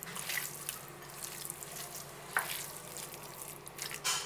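A hand squeezing and kneading moist minced chicken filling in a bowl: soft, wet squishing with a couple of short sharper squelches.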